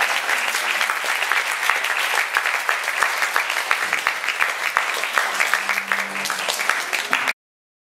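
Audience applauding steadily, a dense patter of many hands clapping, which cuts off abruptly about seven seconds in.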